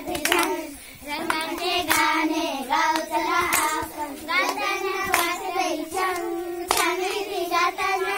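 A group of young girls singing a Marathi children's action song together, with sharp hand claps on the beat about every second and a half.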